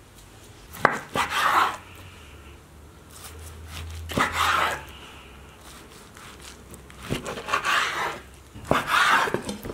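Kitchen knife slicing through a raw meat roll wrapped in caul fat on a wooden cutting board, four cuts in all. Each cut is a sharp tap followed by a short rasping stroke.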